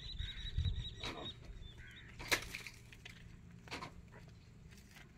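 A few sharp knocks, the loudest about two seconds in, over a low rumble, with a high, thin, slightly wavering note through the first second and a half.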